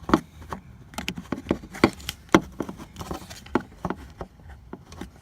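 Irregular sharp plastic clicks and knocks of a small screwdriver prying at the locking clip of the electrical connector on the back of a car alarm siren.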